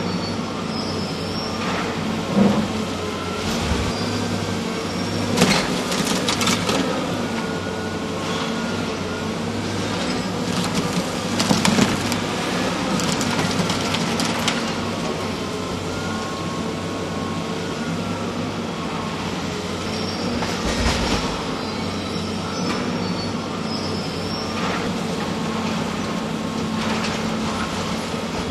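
John Deere tracked excavator's diesel engine running steadily under load with a wavering whine, while its bucket tears at a brick wall. Bricks and debris crash and clatter down several times, loudest about 5 and 12 seconds in.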